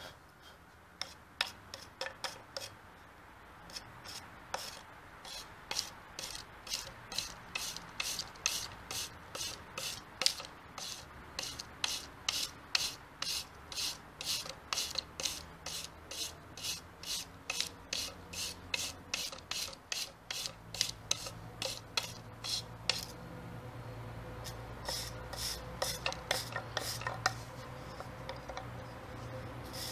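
Hand wire brush scrubbing charred wood, in quick back-and-forth strokes about two a second, brushing loose char off torch-flamed pine to bring out the grain.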